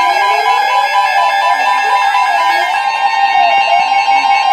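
Emergency Alert System attention signal: a loud, steady two-tone alarm, harsh and distorted, with a slight regular wobble.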